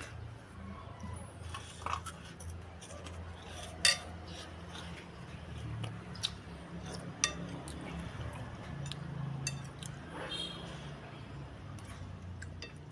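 Cutlery clinking and tapping against a bowl while eating, in scattered sharp clicks; the loudest comes about four seconds in. A low steady hum runs underneath.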